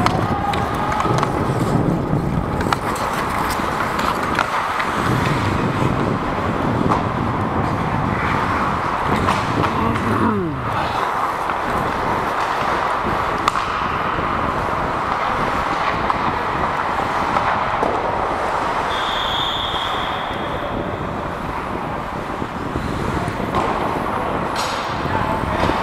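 Ice skate blades gliding and scraping on rink ice, heard as a steady rushing noise on a helmet-mounted microphone. A short high steady tone sounds about three quarters of the way through.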